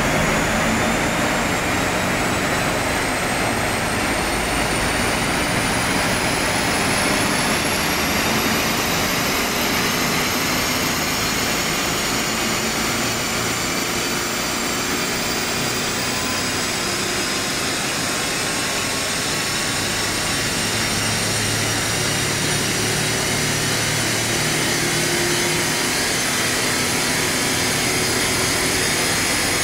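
ABT-tuned Audi SQ7's V8 at full throttle on a chassis dynamometer during a top-speed run. A steady, dense rush of engine, tyre and roller noise, with a whine that climbs slowly in pitch as the speed rises.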